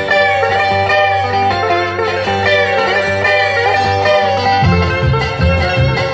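Live trio music: a picked guitar lead plays a melodic intro over a held low note, then the upright bass and drums come in with a steady beat about four and a half seconds in.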